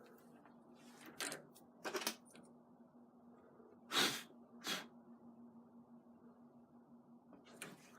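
A few short clicks and knocks of hand tools and hardware being handled while working on a door lock, the loudest about halfway through, over a faint steady hum.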